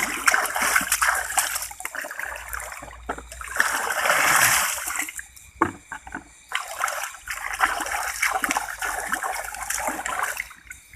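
Water splashing and sloshing in long swells as land snails are washed by hand, with a few sharp clicks.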